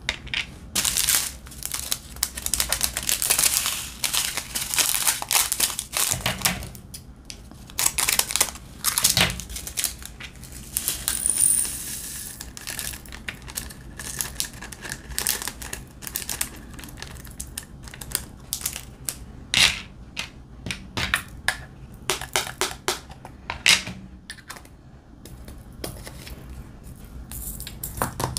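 Diamond-painting resin drills rattling and clicking as they are tipped from a plastic bag across a ridged plastic tray and into small round containers, with the bag crinkling. The sound comes as an irregular run of sharp clicks and short rattles.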